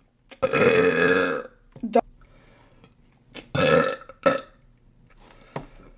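A woman burping loudly: one long, drawn-out burp about half a second in, then two shorter burps a little over halfway through.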